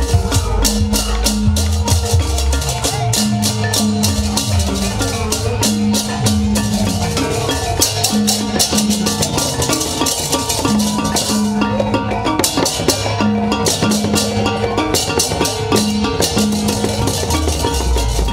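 Loud street-parade music: drums and clanging metal kettle gongs beating a fast, dense rhythm over a deep bass line with held and sliding notes.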